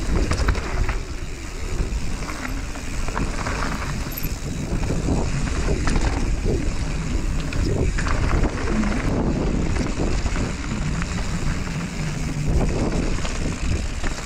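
Wind buffeting the microphone over the rolling noise of mountain bike tyres on a loose gravel and dirt trail, with scattered clicks and rattles from stones and the bike.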